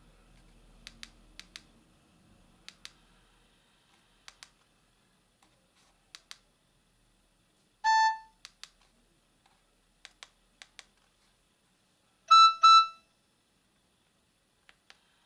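Nokia 110 keypad buttons clicking, each press a quick pair of clicks, every second or so as the menu is stepped through. One short electronic beep sounds from the phone about eight seconds in, and a louder quick double beep follows about four seconds later.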